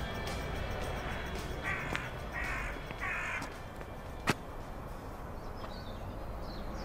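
A crow cawing three times in quick succession, harsh calls about half a second apart, followed a second later by a single sharp click.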